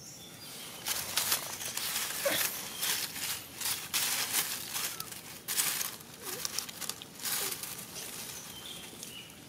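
Dry leaf litter crackling and rustling in irregular bursts as young long-tailed macaques shuffle and shift on it, with a few faint short high chirps.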